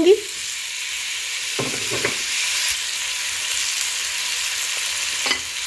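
Chopped tomatoes sizzling in hot oil with fried onions and spices in a frying pan: a steady, even hiss, with a couple of soft knocks about two seconds in.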